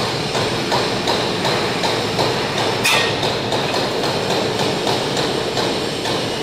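CNC fiber laser tube cutting machine running: a steady mechanical hiss with an even clatter about three times a second, and one sharper metallic clack about three seconds in.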